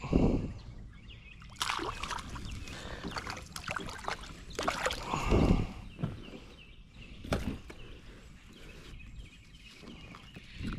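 Irregular water splashes and sloshing, with a few sharp knocks, as a hooked spotted bass is landed at a kayak.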